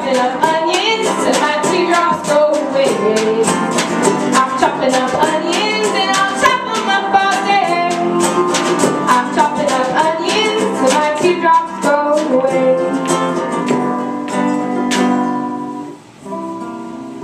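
Live acoustic band music: strummed guitar with an even beat of about three to four hits a second under singing. About fifteen seconds in, the beat and voices drop out, leaving guitar chords ringing.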